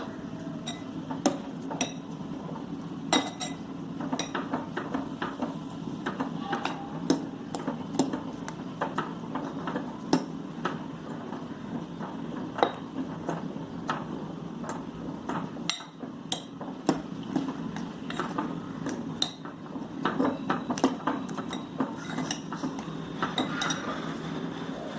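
Metal ladle stirring sambar in a kadai, clinking and scraping against the pan many times at an uneven pace over a steady low hum, as ground coconut masala is mixed in to keep it from forming lumps.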